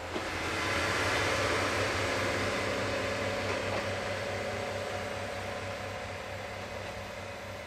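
Diesel railcar train running past: a steady engine drone with rail noise that is loudest about a second in and then slowly fades as the train draws away.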